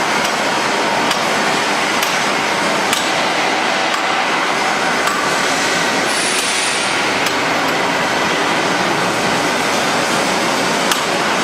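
Welded-pipe mill machinery running in a factory: a steady, loud mechanical noise with occasional metallic clicks and knocks.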